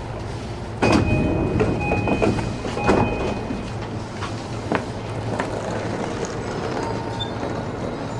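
E233 series 5000 train stopped at a station: about a second in the doors open with a sudden clunk and a repeated high chime, followed by scattered knocks, over the train's steady low hum.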